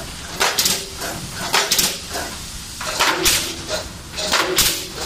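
Automatic pallet nailing machine running, its nailing heads firing in short sharp bursts of hiss and clatter, about one burst or quick pair of bursts every second and a bit, over a low steady machine rumble.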